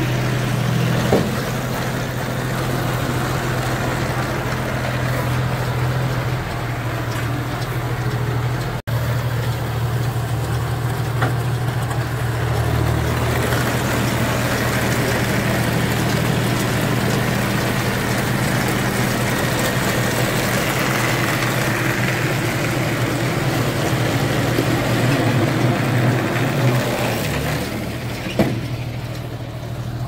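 John Deere 5045D tractor's three-cylinder diesel engine running steadily, driving a tractor-drawn straw baler whose pickup and chain-driven mechanism work close by, with a few sharp clicks.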